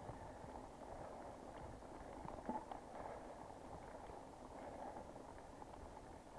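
Mountain bike being ridden on a trail: steady rolling noise of the tyres and bike, with scattered small clicks and rattles and one sharper knock about two and a half seconds in.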